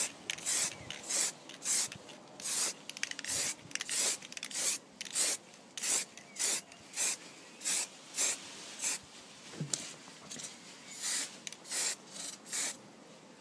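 Humbrol acrylic aerosol spray can hissing in many short bursts, about two a second, each a brief squirt. These are light dusting passes of grey primer rather than one continuous spray.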